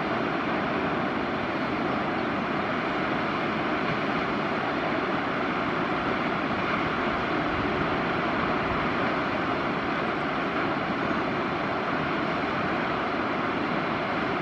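Tall mountain waterfall pouring steadily: an even rushing of falling water at a constant level, with no breaks or changes.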